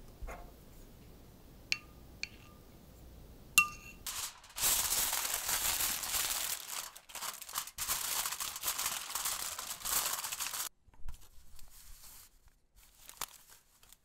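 Aluminium foil crinkling loudly for about six seconds as it is pressed and wrapped around a pudding container, with fainter rustling afterwards. A few light, ringing clinks come before it in the first few seconds.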